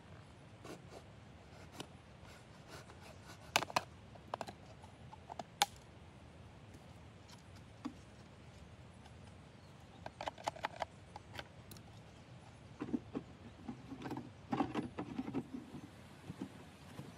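Scattered light clicks, scratches and rustles at an irregular pace, busier and louder in the second half.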